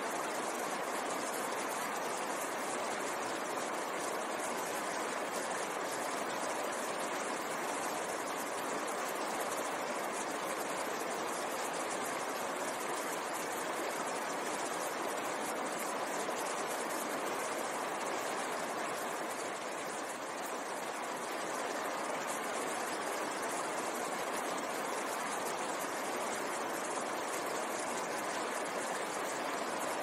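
Mountain stream rushing over boulders: a steady, even rush of water with no breaks.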